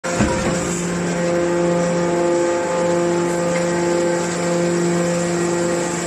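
Hydraulic scrap metal baler running, its hydraulic pump giving a steady, loud pitched hum, with a short knock just after the start.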